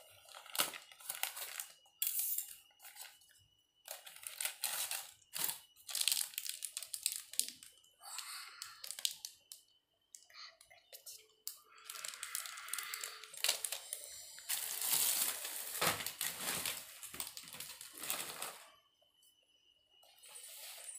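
Clear plastic wrapping crinkling and rustling as jewellery pieces in their packets are handled, in irregular bursts with short pauses between.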